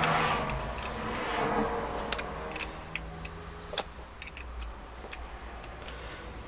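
Uneven metallic clicks and clinks of a small spanner working the fasteners on the end cover of a Bosch starter motor, with some handling rustle.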